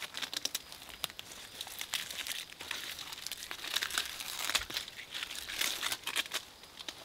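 A knife scoring the outer bark of a white birch trunk while the papery bark is peeled away. It makes a dry, continuous crackling and tearing, full of sharp little ticks.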